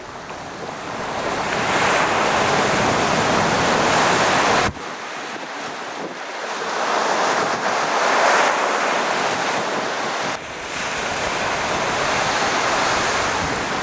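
Storm surf on the Black Sea: waves breaking and washing up on the shore in a steady rush that swells and fades, with wind buffeting the microphone. The sound changes abruptly twice, about five and ten seconds in.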